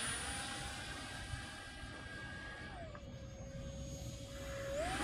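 QX 50 mm electric ducted fan of a small RC jet whining faintly in flight. The whine steps down in pitch about halfway through as the fan slows, then climbs back up near the end.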